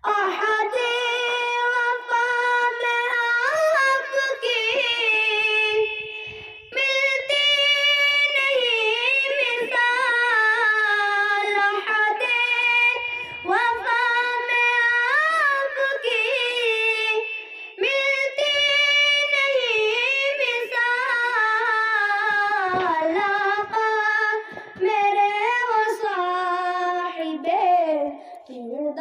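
A boy singing an Urdu naat unaccompanied into a handheld microphone, in long high held notes with ornamented turns, phrase after phrase with short pauses for breath.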